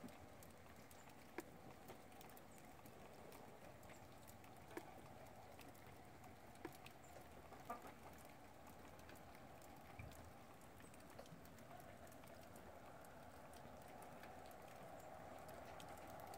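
Near silence: faint steady background hiss, broken by about half a dozen sharp, isolated ticks.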